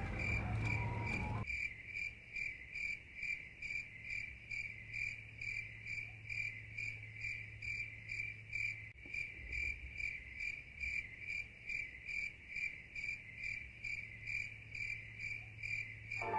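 Cricket chirping steadily in a clear, even pulse, about two and a half chirps a second, over a faint low hum.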